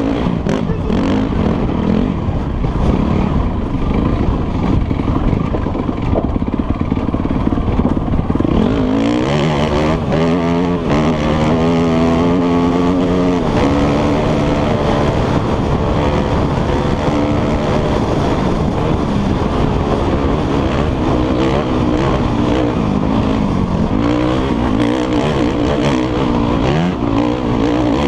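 Enduro dirt bike engine revving hard at racing speed, its pitch climbing as it accelerates about nine seconds in, holding a high note for a few seconds, then dropping back; it rises again near the end.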